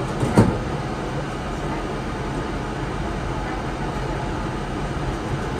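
Yurikamome 7500 series rubber-tyred automated guideway train running along its guideway with a steady rumble. A single sharp knock comes about half a second in.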